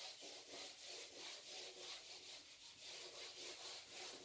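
Faint rubbing of a whiteboard being wiped clean, in quick repeated back-and-forth strokes as the marker writing is erased.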